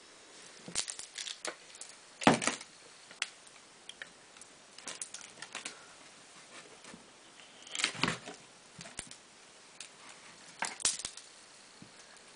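Irregular clicks and knocks as hard salt-soap bars and their mould are handled on a countertop, with a few louder knocks spread among the lighter clicks.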